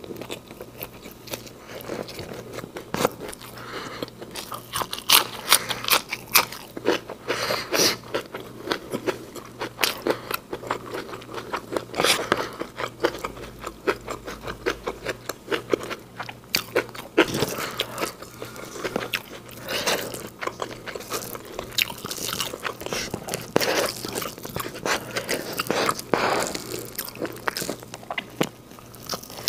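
Close-miked eating sounds: wet chewing and many irregular crisp crunches as a mouthful of nasi goreng and crispy fried bakwan corn fritter is bitten and chewed.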